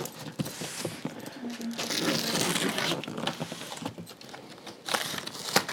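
Packaging crinkling and rustling as it is pulled and torn out of a freshly opened box, with a couple of sharp knocks near the end.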